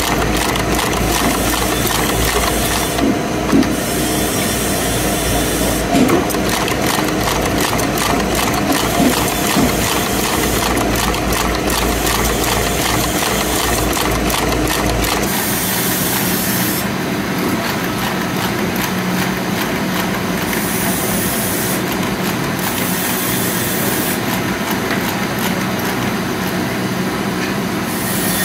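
Wire brush tufting machine running, its punch driving tufts of steel wire into a wooden brush block with a fast, steady mechanical clatter. About halfway through, the low hum under it drops away while the clatter goes on.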